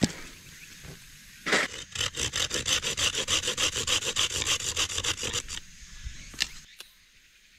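Folding pruning saw cutting through a thin dry branch in quick, even back-and-forth strokes, about eight or nine a second, for roughly three and a half seconds. A knock comes just before the sawing starts.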